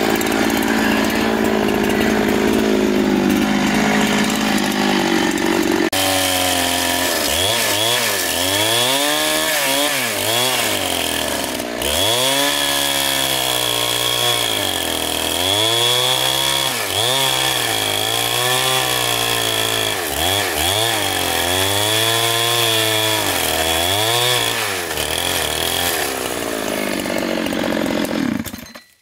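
Engine-driven saw cutting wood, likely a chainsaw. For the first six seconds it runs at a steady high speed. After an abrupt change about six seconds in, its engine pitch drops and recovers every second or two as it bogs under load in the cut, with a steady high whine above. It cuts off suddenly at the end.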